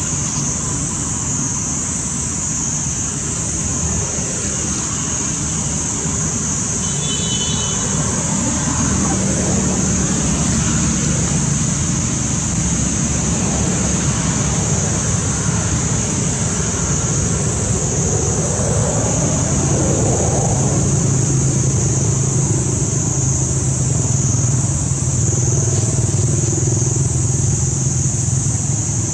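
Steady outdoor background noise: a low rumble like distant road traffic under a constant high-pitched drone.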